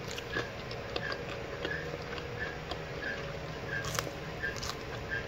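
Crisp fried chicken skin crackling and clicking as the piece is pulled apart by hand, a few sharp clicks with the strongest about four seconds in. A faint short high chirp repeats about two and a half times a second behind it.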